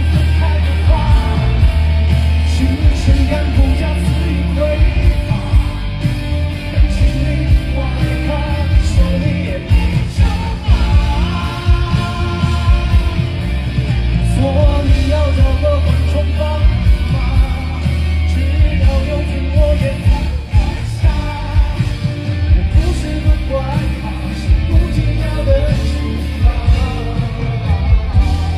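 Live rock band playing loud through a concert PA, with heavy drums and bass and a voice singing over it.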